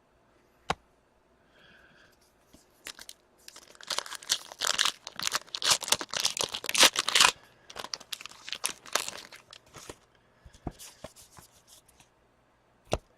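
A hockey card pack's wrapper being torn open and crinkled, in dense crackly stretches about four and eight seconds in, with a sharp click near the start and another near the end.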